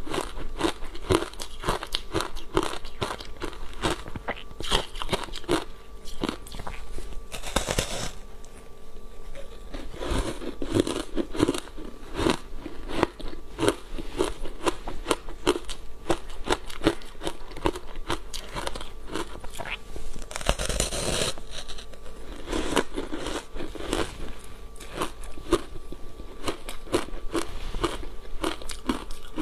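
Haoqi crunchy foam block ice, thickly coated in matcha powder, chewed close to a clip-on microphone: rapid crunching at about four crunches a second. There are two brief louder, noisier rushes, about a quarter of the way in and about two-thirds of the way in.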